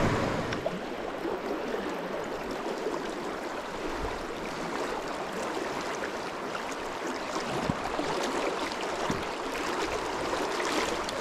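Shallow river running fast over rocks and riffles: a steady rush of moving water.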